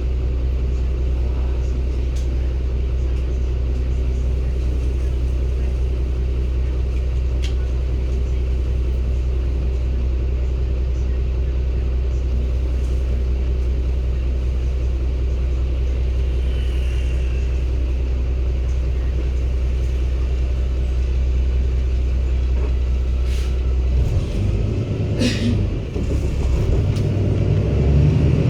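Cummins ISB 280 PS Euro 6 diesel engine of a 2016 Daewoo BS090 city bus, with the air conditioning off, running at a steady low idle. About 24 seconds in, the engine speed rises as the bus accelerates. A couple of short clicks are heard around that time.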